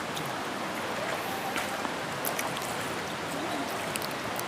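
Steady rushing of flowing stream or river water.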